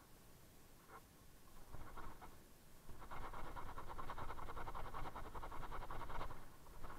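A sneaker being scrubbed with a soapy S.O.S steel wool pad: two short scrubs about one and two seconds in, then about three seconds of fast, steady back-and-forth scrubbing from midway.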